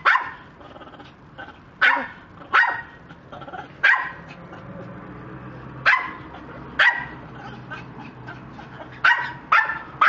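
Sharp dog-like barks, about eight of them, each short and pitched, coming irregularly a second or two apart.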